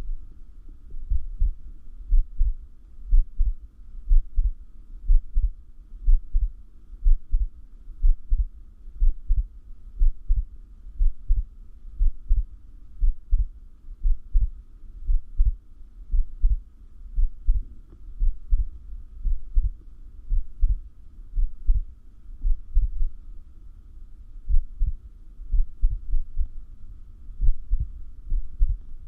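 A person's heartbeat picked up close to the chest: low thumps about once a second, not quite evenly spaced, recorded during a breath hold, which the uploader says brings on more arrhythmia. A faint steady hum sits above it.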